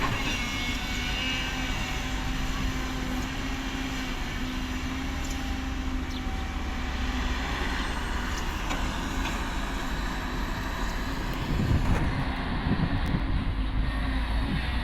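Caterpillar excavator's diesel engine running steadily while digging, growing a little louder and deeper about twelve seconds in.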